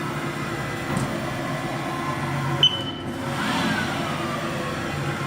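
Haas VF-3 X-axis servo drive and newly replaced ball screw moving the table, a steady mechanical running hum with a faint whine. About two and a half seconds in there is a sharp click, followed by a whine that falls in pitch.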